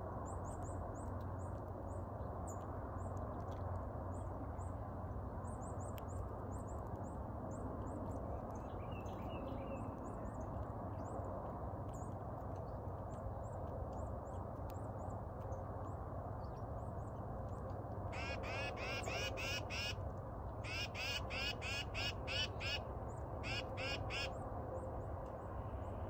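Tufted titmouse scolding: several bouts of rapid repeated calls, about four notes a second, in the last third, with thin high chip notes scattered earlier, over a steady low background rumble.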